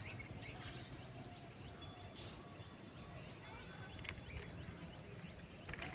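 Faint outdoor ambience with scattered short bird chirps.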